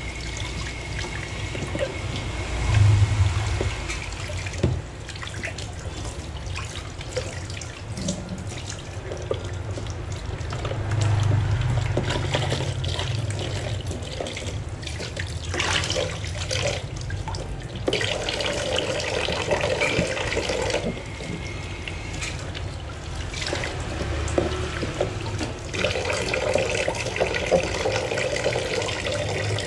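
Tap water running and splashing into a stainless steel kitchen sink as a clear plastic food container is rinsed and scrubbed with a sponge, with occasional knocks and scrapes of handling.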